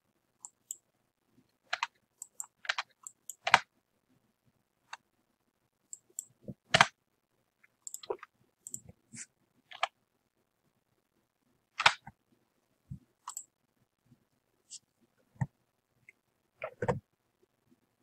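Computer keyboard keys and mouse buttons clicking irregularly while values are typed into a form: single sharp clicks and short quick runs of keystrokes, with quiet gaps between.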